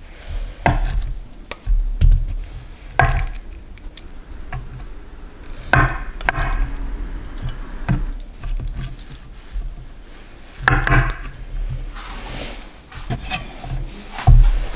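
Chef's knife slicing through a block of firm tofu and knocking down onto a bamboo cutting board, a dozen or so sharp taps at uneven intervals.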